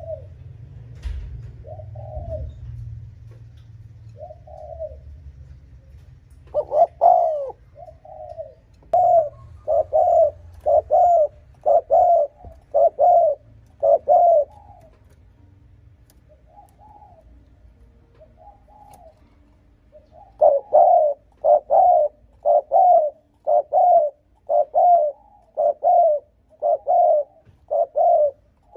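Spotted dove cooing. A few soft coos give way to two fast runs of loud, even coos, about one a second, with a quieter break of a few seconds between them. This is the excited rapid cooing that dove keepers play to rouse rival wild doves.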